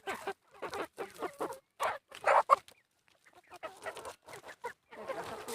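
Kadaknath chickens clucking in short, separate calls, with a louder call a little past two seconds in.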